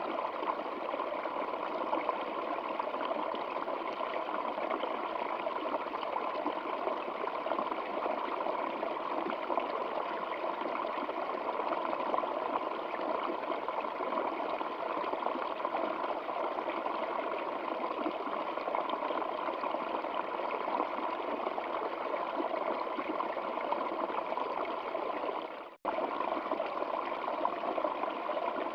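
Steady rushing of flowing stream water. Near the end it cuts out for a split second and comes straight back, like a loop or edit point in the recording.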